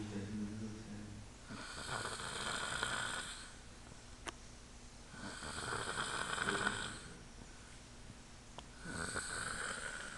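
A man snoring in his sleep: three long snores of about two seconds each, coming roughly every four seconds.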